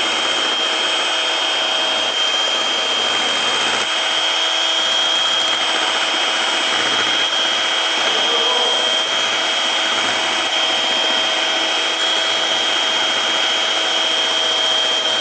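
Electric hand mixer running steadily with a high motor whine, its beaters whipping cream and sugar in a glass bowl.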